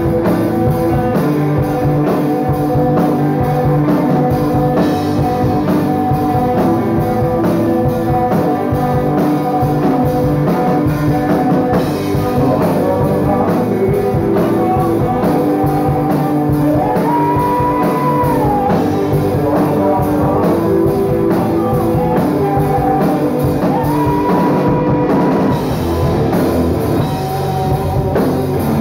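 A rock band playing live, with electric guitars, bass and a drum kit under a male voice singing long held notes that bend in pitch.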